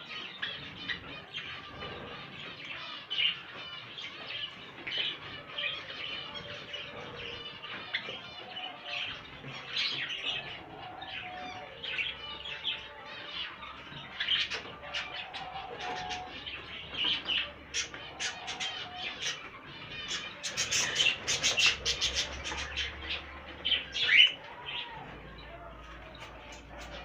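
Many caged pet birds chirping and twittering continuously, the chirping growing busier and louder about twenty seconds in.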